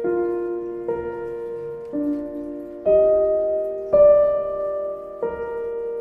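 Soft background piano music: slow, with a new note or chord struck about once a second, each ringing and fading away.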